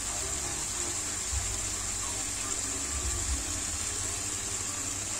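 Meat and onion rings sizzling steadily in sauce in a hot pan, a constant hiss.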